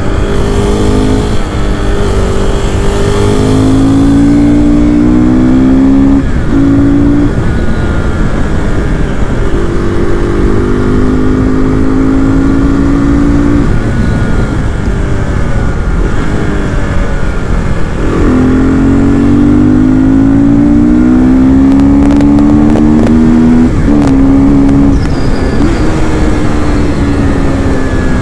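KTM RC390's single-cylinder engine pulling hard under way, its pitch climbing through each gear and dropping back at the gear changes, several times over.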